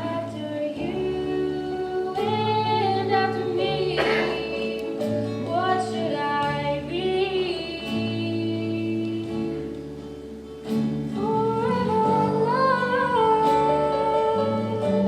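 Singing with instrumental accompaniment from a stage musical: voices hold long notes over sustained chords, dipping softer about two-thirds of the way through before swelling again.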